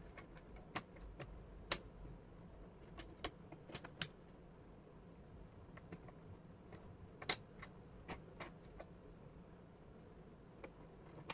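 Wooden jigsaw puzzle pieces clicking and tapping as they are picked up, slid and pressed into place on a table: scattered sharp clicks, one run in the first four seconds and another about seven to nine seconds in.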